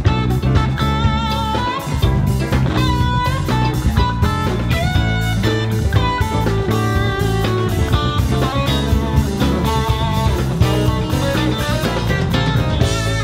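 Live five-piece rock band playing an instrumental passage: electric guitar lines over bass, drum kit and keyboards, at a steady loud level.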